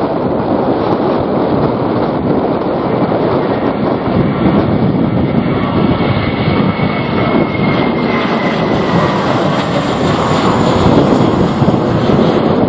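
Jet airliner engines passing, a loud rushing roar with a high whine that falls slightly in pitch, while strong wind buffets the microphone.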